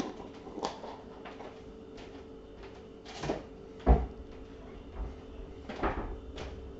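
A few scattered knocks and clunks of kitchen things being handled, with one heavier low thump about four seconds in.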